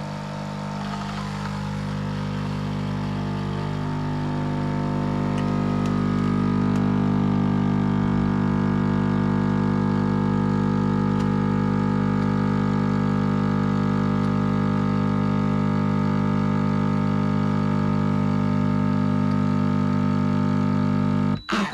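Kotlie 4-in-1 capsule coffee machine's pump running as it brews a Dolce Gusto milk capsule: a steady mechanical hum that builds over the first few seconds, holds level, then cuts off abruptly near the end as the machine stops at its set 2-ounce dose.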